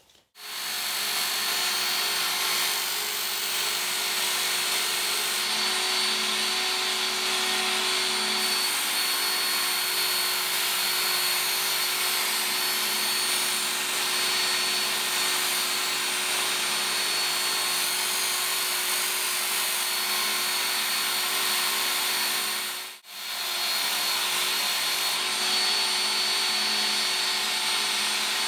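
Work Sharp Ken Onion Edition electric belt sharpener running steadily with a constant motor whine, its abrasive belt grinding the spine and edges of a machete blade to round off the sharp corners. The grinding hiss grows stronger for a few seconds twice, and the sound breaks off for a moment about 23 seconds in.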